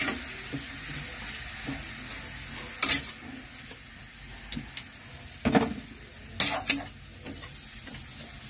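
Raw chicken pieces sizzling in hot oil in a metal pan while a metal spatula stirs them, scraping and clinking against the pan a few times.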